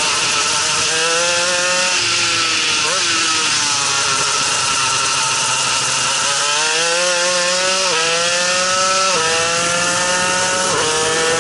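Shifter kart's two-stroke engine at speed, its pitch climbing under acceleration and dropping sharply at each gear change, about two seconds in and again twice late on. In the middle the pitch falls away for a few seconds as the kart slows for a corner, then climbs again.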